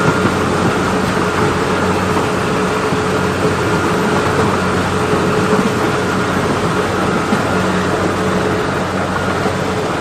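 Engine-driven farm machine running steadily at constant speed: a steady hum with an even, dense rattling noise over it.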